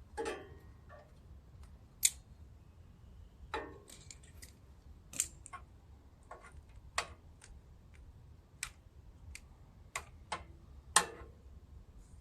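Irregular light clicks and taps of small metal parts being handled and fitted while a small-engine carburetor is put back together, about fifteen over the stretch, some with a brief ring.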